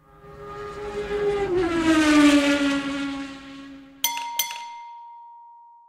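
Outro sound effect: a car engine passing by, swelling and then fading, its pitch falling as it goes past. About four seconds in come two quick strikes and a single bright chime that rings out and fades.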